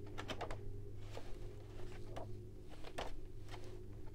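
Faint paper rustles and a few light ticks as the pages of a book are handled and turned, over a steady low hum.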